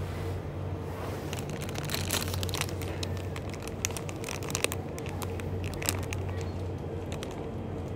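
Plastic food packaging crinkling as it is picked up and handled, a run of sharp crackles, over a steady low hum.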